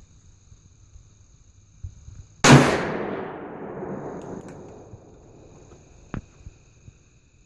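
Smith & Wesson Performance Center .460 S&W Magnum revolver fired once about two and a half seconds in, the loud report echoing and fading away over about two seconds. A single sharp click comes about six seconds in.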